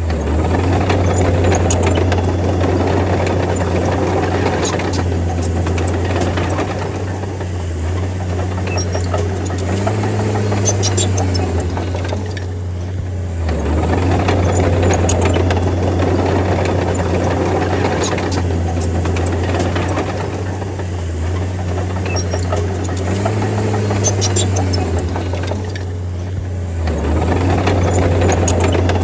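Crawler bulldozer's diesel engine running under load with a steady low drone that swells and eases, dropping briefly twice, with scattered sharp metallic clinks.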